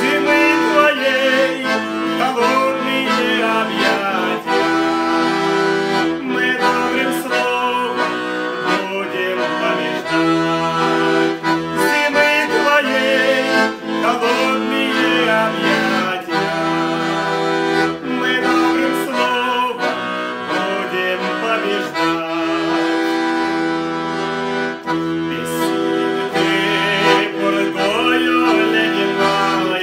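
Red Weltmeister chromatic button accordion playing a song, held chords over short bass notes, with a man singing along.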